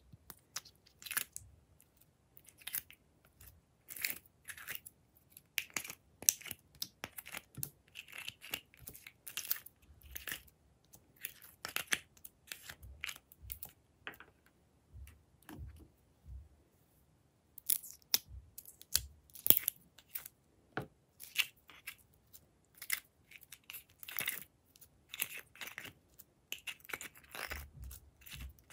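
Thin plastic compartment cups of glossy slime being squeezed and emptied by hand, with the slime squishing, giving an irregular stream of sharp crackles, clicks and squelches. There is a short pause a bit over halfway through.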